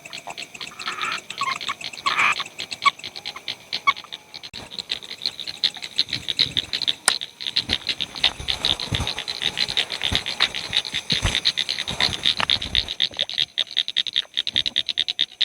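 Chorus of frogs calling at night in flooded rice paddies: rapid, pulsing, overlapping calls without a break, over a thin steady high tone. A sharp click about seven seconds in, and a few low thumps in the second half.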